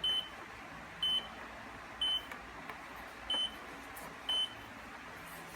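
Sharp ES-FL1018W front-load washing machine's control panel beeping: five short, high, single-pitched beeps about once a second, the beeps of the program selector being stepped through its programs.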